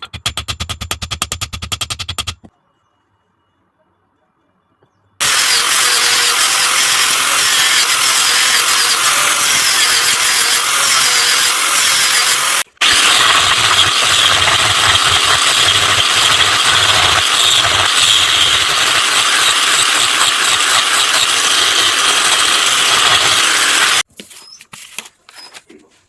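Power tool grinding metal: a loud, steady, hissy grinding with a high whine, in two long runs broken by a very short stop, which then cuts off sharply. Before it comes a short run of rapid, evenly spaced clicks, then a few seconds of silence.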